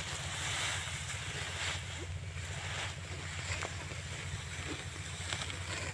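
Wind buffeting the microphone outdoors: a steady, fluttering low rumble under a rushing hiss.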